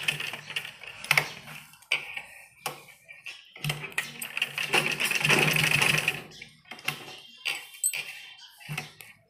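Gulzar straight-stitch sewing machine stitching in short stop-start runs, the longest about four to six seconds in, as a strip is sewn firmly onto the apron. Between runs come pauses and a few sharp clicks.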